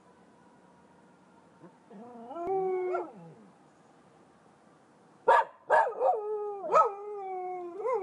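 A dog howling, set off by a siren. A short rising howl comes about two seconds in. From about five seconds in, a few sharp yips or barks break into a long, slowly falling howl that lasts to the end.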